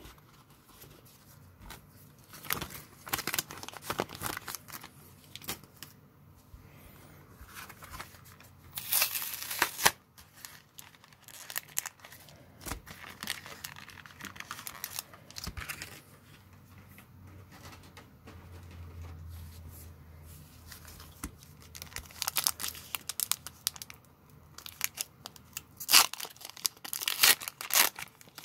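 Handling of Pokémon trading cards, plastic card sleeves and a foil booster-pack wrapper: light rustling and clicking, a longer louder rustle about nine seconds in, then a dense run of foil crinkling and tearing near the end as a booster pack is torn open.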